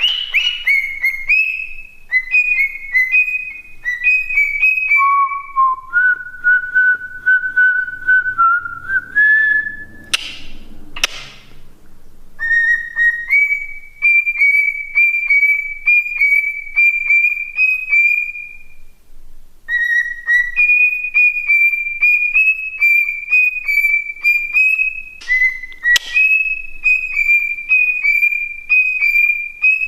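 Pet cockatiel whistling a long run of quick, repeated short notes, mostly high, dropping lower for a few seconds. Two short harsh noisy calls come about ten seconds in, and a sharp click comes near the end.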